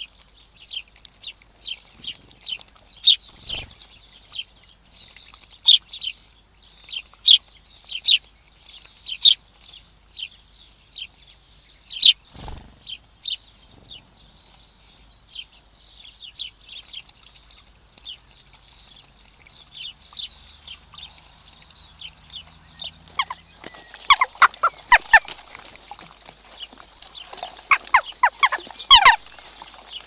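Small songbirds chirping in short high notes, about one or two a second, with a single knock about twelve seconds in. From about 24 s a flock of jackdaws calls loudly at the feeder, with many short overlapping calls.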